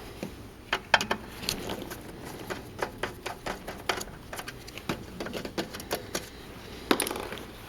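Irregular sharp clicks and taps of a screwdriver and metal parts being handled as a piece of the machine's casing is taken out.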